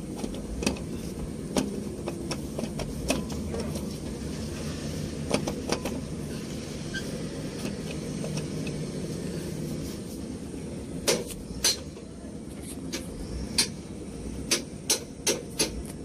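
Scattered sharp metallic clicks and knocks as a new starter motor is worked into place on a dump truck's mounting studs, over a steady low rumble. Near the end the clicks turn into a regular tapping of about three a second.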